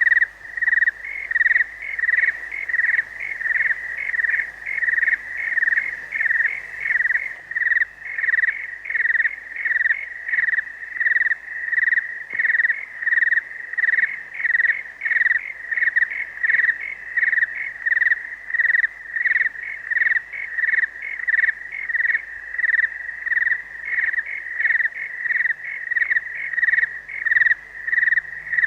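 Night-time ambience of crickets chirping in a steady high-pitched pulse that repeats about once a second.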